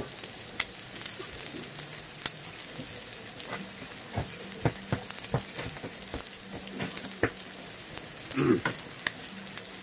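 Makchang and pork belly sizzling on a round griddle pan: a steady fat-frying hiss with sharp spattering pops about once a second.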